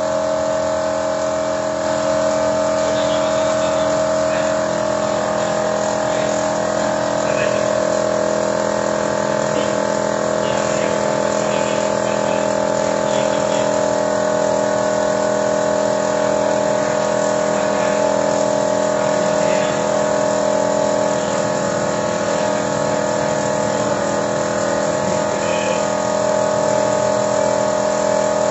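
Toyota Innova engine running steadily at idle, with a constant hum, during a carbon-cleaning treatment.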